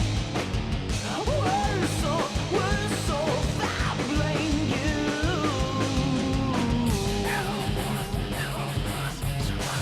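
Rock music with a sung vocal, a steady beat and guitar.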